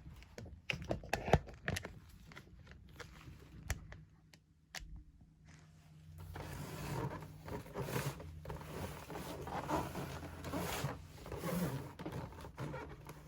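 Unboxing handling noises: a few sharp clicks and knocks, then, from about six seconds in, continuous uneven rustling and scraping of packaging.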